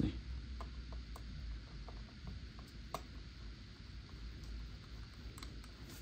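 Faint, irregular light clicks and taps of a small precision screwdriver working a screw on the logic board of an opened MacBook Air, over a steady low hum.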